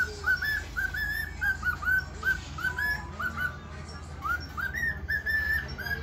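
Cockatiel whistling a quick run of short notes, each rising and then held for a moment, about three a second.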